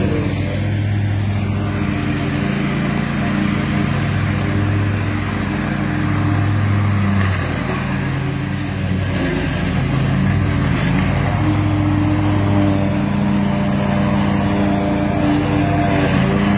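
Small engine of a ride-on palm-circle weeding machine running steadily while it clears weeds, its pitch wavering for a few seconds about halfway through.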